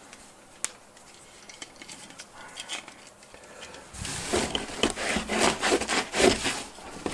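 3D printer kit parts being handled in their foam packing. At first there are only a few faint clicks. From about four seconds in comes a busy run of rustling, rubbing and small plastic clicks as an extruder carriage is lifted from the foam and a plastic-wrapped bundle is handled.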